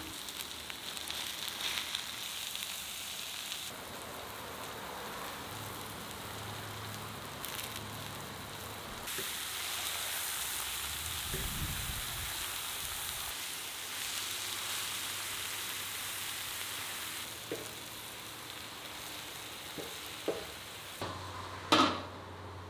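Ground meat and onions sizzling on a large steel frying disc, stirred and scraped with a wooden spatula. A sharp knock near the end.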